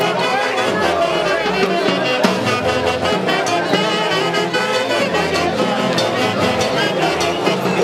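Live huayno played by an orquesta with a saxophone section, the saxophones carrying the melody over a steady bass and percussion beat.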